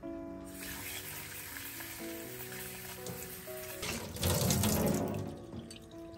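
Kitchen tap running water over cherry tomatoes in a glass bowl and into a stainless steel sink, splashing louder about four seconds in, then shut off near the end. Soft background music plays underneath.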